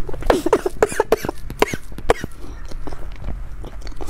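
A woman coughing in a quick run of short coughs, then once more, harder, at the very end: she has choked on a mouthful of powder-topped soy-milk mochi dessert.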